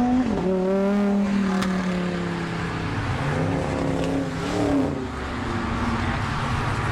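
A car engine accelerating hard as the car drives off, revving up and dropping at a gear change just after the start, then climbing again and shifting a second time about five seconds in.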